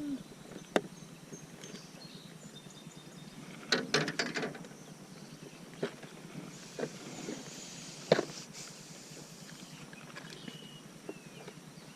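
Scattered knocks and clicks of handling in a small boat, with a short cluster about four seconds in and a sharper knock about eight seconds in.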